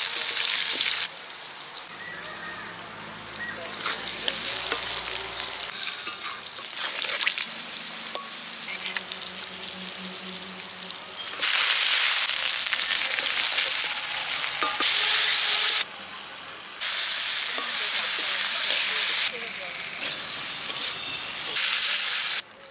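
Potato chunks sizzling in hot oil in a metal kadai while a metal spatula stirs and scrapes them around the pan. The sizzle switches abruptly between loud and softer stretches.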